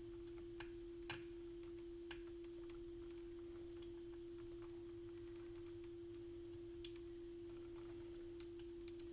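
Faint, scattered small clicks of a transistor's metal leads and hand tools tapping against a circuit board while the leads are worked into its holes, over a steady faint tone.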